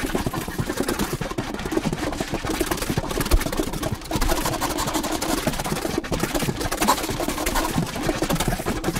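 Saxophone and drums playing experimental music together: a dense, unbroken texture of rapid, clattering strokes with the saxophone's sound underneath.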